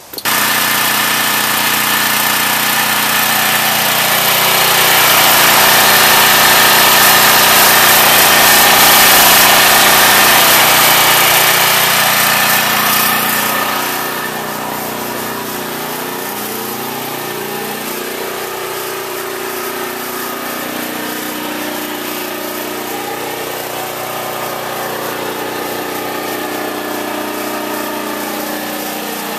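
An 11 hp Honeywell portable generator's engine, a Honda clone converted to tri-fuel, running steadily on natural gas. It is louder for the first dozen seconds, then settles to a lower, even level about fourteen seconds in.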